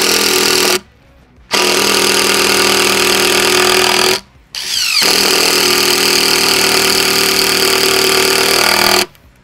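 DeWalt cordless impact driver hammering wood screws into timber in three runs. The first stops about a second in; the next two each start with a rising whine as the motor spins up, and the last runs about four seconds. Its 5 Ah battery shows no charge light and is close to dying.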